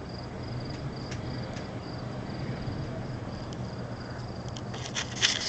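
Faint, steady high-pitched chirping that repeats about three times a second, like a cricket, over a low hum. A short burst of clicks and rustling near the end is the loudest sound.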